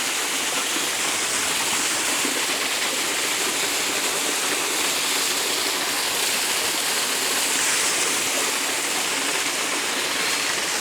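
Small waterfall cascading over sandstone ledges and splashing onto rocks below: a steady, even rush of falling water.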